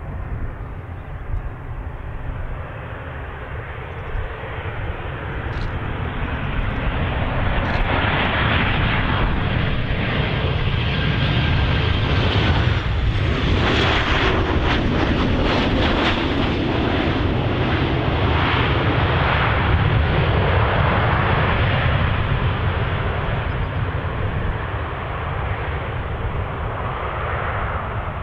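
Boeing 737-800's twin CFM56-7 turbofan jet engines on a landing: a steady jet noise and low rumble that builds as the airliner approaches, is loudest as it passes low over the runway and touches down, then eases off as it rolls out.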